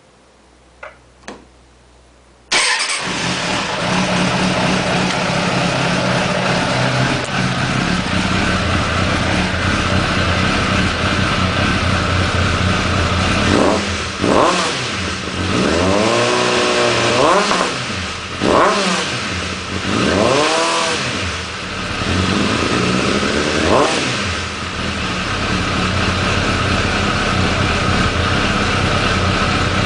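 Suzuki Bandit 600's inline-four engine through a BOS exhaust with the dB eater (baffle) removed. After two faint clicks it starts about two and a half seconds in and idles loudly. Around the middle it is revved in about five quick throttle blips, each rising and falling in pitch, then it settles back to idle.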